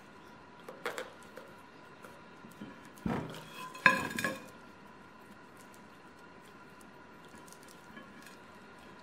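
A whole raw chicken being turned over on a white plate: the bird and hands knock against the plate, which clatters and rings briefly about three to four seconds in. A few light knocks come about a second in.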